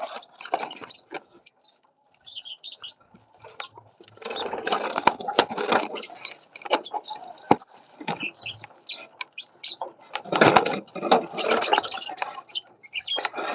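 Aviary birds chirping and squeaking in quick, busy chatter, with louder stretches of mixed noisy calling about four and ten seconds in.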